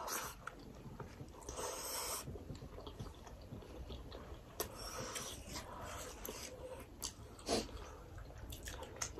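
Quiet close-miked chewing of mouthfuls of mutton momo, with soft wet mouth clicks and breaths through the nose.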